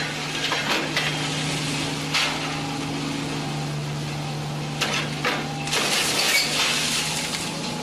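Excavator working: its engine runs with a steady hum while the bucket and debris give sharp clanks and knocks, then a longer rattling rush of material about six seconds in.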